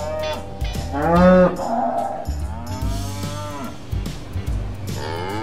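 Cows mooing: a string of long moos one after another, the loudest about a second in.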